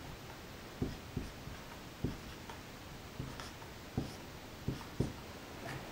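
Marker writing on a whiteboard: a run of about eight short taps and strokes at uneven spacing as characters are drawn.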